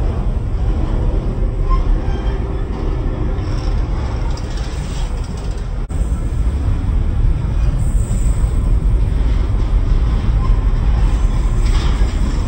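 Double-stack intermodal container train rolling past close by: a steady, loud rumble of steel wheels on the rails, with faint clatter from the well cars.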